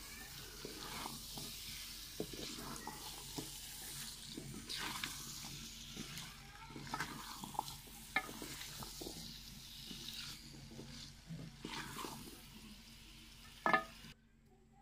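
Wooden spatula stirring cubed raw potatoes through sizzling masala in a metal pot, with a running hiss of frying and scattered scrapes and knocks against the pot. A sharper knock near the end is the loudest, and the sound then stops abruptly.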